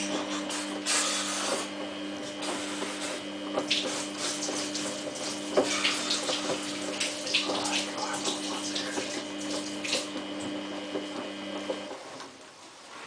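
Samsung WF8804RPA washing machine filling with water: a steady electrical hum from the inlet valve over rushing, splashing water with small crackles. The valve shuts off and the flow stops about twelve seconds in.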